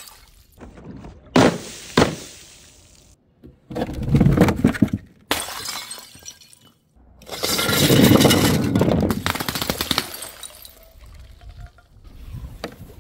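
Colour-filled glass bottles and jars shattering as they hit the ground after being dropped from a height, one drop after another: two sharp crashes, then longer crunching shatters, with quick glass clinking near the end.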